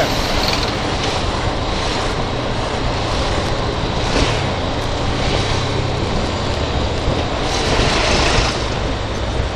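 Honda CB300R's single-cylinder engine running steadily at low speed as the motorcycle filters between lanes of slow traffic, with wind and road noise rushing over it. The rushing noise swells briefly near the end.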